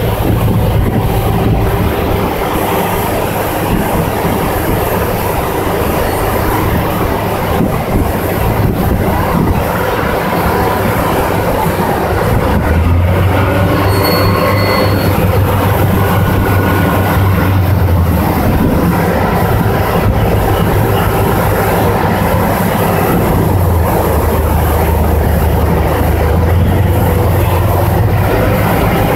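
Car ferry's engines running loud under a rumbling, grinding din as the boat maneuvers into its landing slip. A low hum swells about twelve seconds in, eases off, and swells again for the last few seconds.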